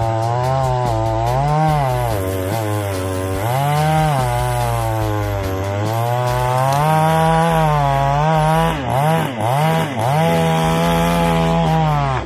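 Two-stroke petrol chainsaw running, its engine pitch rising and falling as the throttle is opened and eased off, possibly while cutting wood. About nine seconds in, the revs dip sharply several times in quick succession before holding high again.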